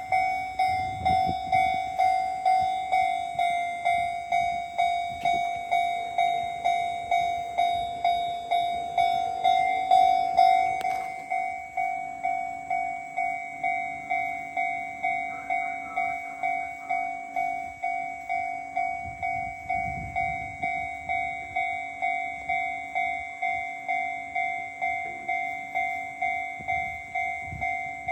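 Japanese railway level-crossing warning bell ringing steadily, just under two dings a second. A little after ten seconds in it peaks and then carries on slightly quieter, with brief low rumbles underneath at times.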